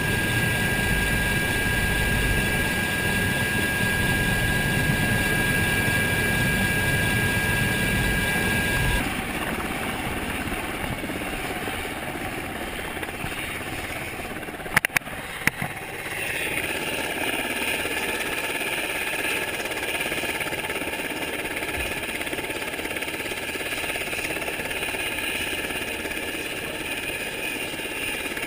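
UH-60 Black Hawk helicopter's twin turbine engines and rotors, first heard inside the cabin with the door open: a loud steady din with a high whine over it. After a cut about a third of the way in, the helicopter runs at a distance, quieter and without the heavy low end, with a few sharp knocks near the middle.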